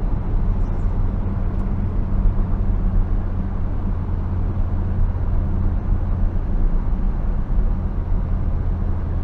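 Cabin sound of a Saab 9-3 Turbo X on the road: its turbocharged 2.8-litre V6 runs with a steady low drone under road noise from studded winter tyres.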